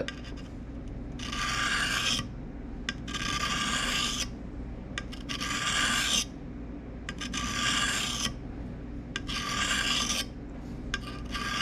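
Pocket knife blade drawn across the medium face of a three-sided sharpening stone: about six slow, even scraping strokes of roughly a second each, with short pauses between them, honing the edge at a shallow angle.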